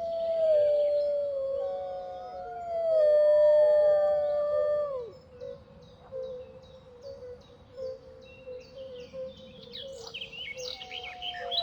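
Gray wolves howling: a long howl gliding slowly down in pitch for about five seconds, with a higher howl overlapping it. Another howl begins near the end. Birds chirp throughout.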